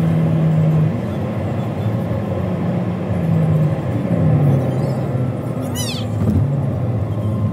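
Road and engine noise inside a car's cabin while driving on an expressway, with a short high chirp about six seconds in.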